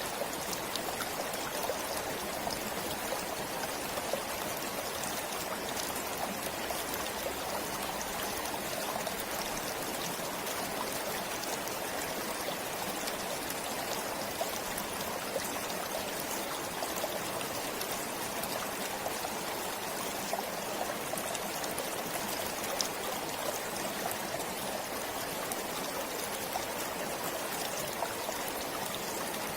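Small stream flowing steadily, a continuous rushing trickle of water with scattered faint ticks of splashing.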